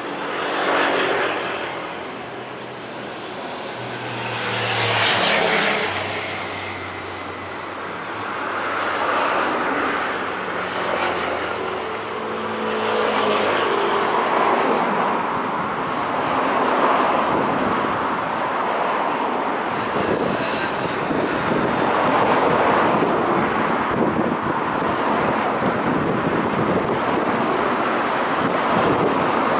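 Road traffic: several motor vehicles pass one after another, each swelling up and fading, then a steadier wash of traffic noise through the second half.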